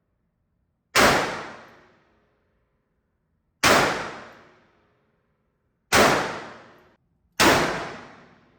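AR-15 rifle fired four times in slow single shots, about one and a half to two and a half seconds apart, each shot dying away over about a second.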